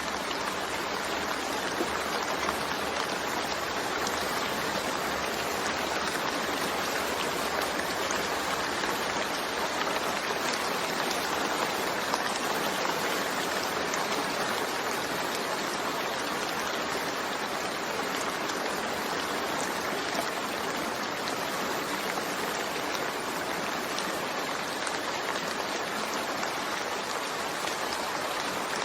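Steady rain falling, an even hiss with faint scattered drop ticks and no thunder.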